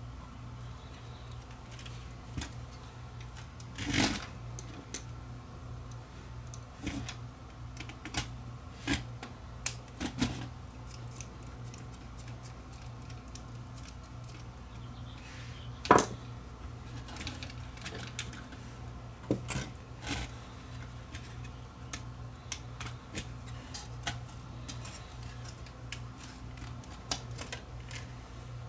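Small clicks and taps of a screwdriver, screws and plastic and metal parts handled while a camcorder is taken apart, over a steady low hum. Two louder knocks come about 4 seconds in and again near the middle.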